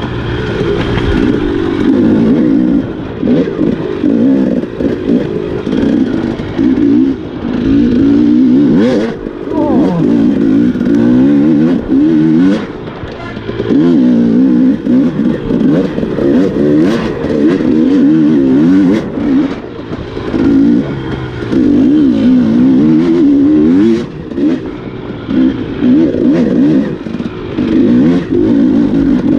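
Enduro dirt bike engine revving up and down again and again as it is ridden over rough trail, easing off briefly a few times, with occasional sharp knocks from the bike.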